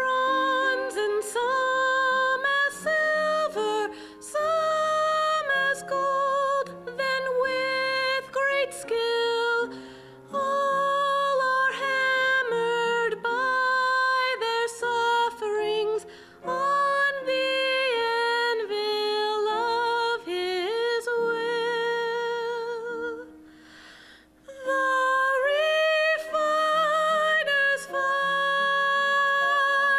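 A woman singing a slow Christian solo song with vibrato into a microphone, over a soft instrumental accompaniment of held notes. About three-quarters of the way through, the sound drops away briefly between phrases before she sings on.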